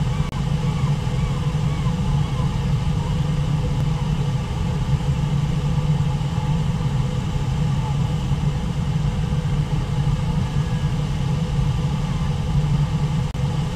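Steady low rumble of a waterfall and rushing river water. It cuts out for an instant just after the start and again near the end.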